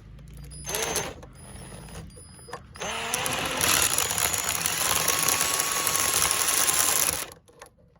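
Drill spinning a grinding stone on a right-angle extension, grinding rust out of the inside of a steel hitch receiver tube. A brief burst about a second in, then about three seconds in it runs steadily for some four seconds and stops abruptly.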